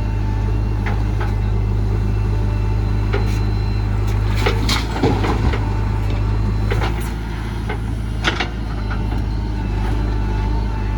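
Backhoe loader's diesel engine running steadily under work, with a cluster of sharp metallic clanks and a rattle about halfway through and another clank a few seconds later, typical of the bucket and linkage at work.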